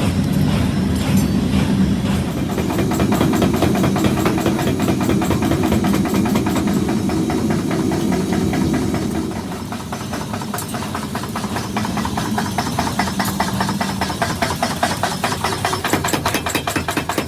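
Workshop machine running with a steady low hum and a rapid, even knocking that grows clearer in the second half.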